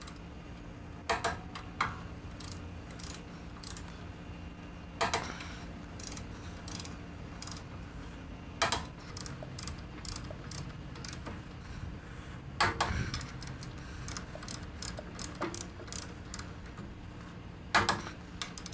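Ratchet wrench with a 30 mm socket clicking as the valve covers on a brass pressure-washer pump manifold are tightened down, in runs of small clicks at about three a second. Several louder sharp clanks of metal tool on metal stand out, about a second, two, five, nine, thirteen and eighteen seconds in.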